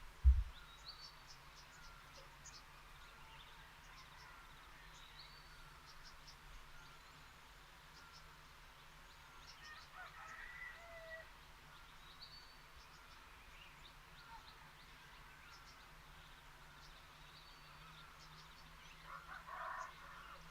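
Birds chirping and calling: many short, repeated chirps and little sweeps over a faint steady background, with a few louder calls near the middle and the end. A single low thump comes just after the start.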